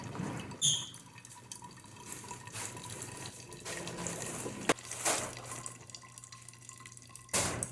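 Hot water trickling and dripping through a cloth coffee filter, with a short clink about half a second in and a few brief sharp noises later.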